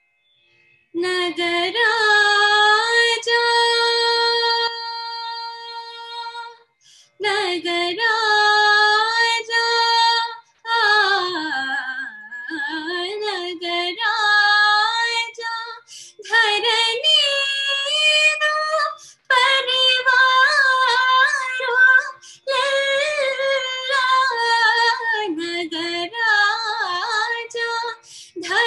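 Young woman's solo voice singing a Carnatic alapana in raga Abheri, heard over a video call: wordless improvised phrases with long held notes and wavering ornamented glides, with short breaths between phrases.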